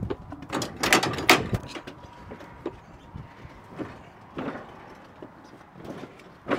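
A grip cart loaded with C-stands and metal grip hardware being pulled out of a van's cargo bay: a burst of clattering metal knocks and rattles about a second in, then scattered single knocks as it shifts toward the ramp.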